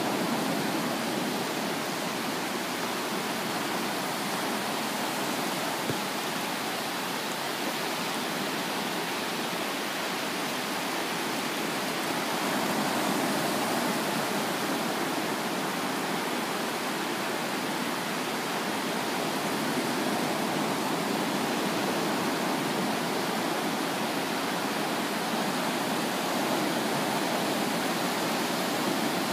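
Ocean surf breaking and washing up a sandy beach: a steady rushing wash that grows a little louder about halfway through.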